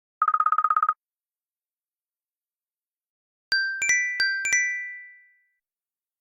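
Apple ringtone/alert sounds. First a rapid buzzing trill of about a dozen pulses lasting under a second. Then, after a pause, a quick run of six bell-like chime notes, some struck in close pairs, that ring on and fade.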